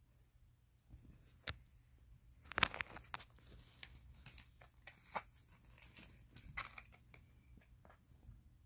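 Thin cardboard box crinkling and creaking under kittens as they shift and paw inside it: scattered soft clicks and crackles, the loudest cluster about two and a half seconds in.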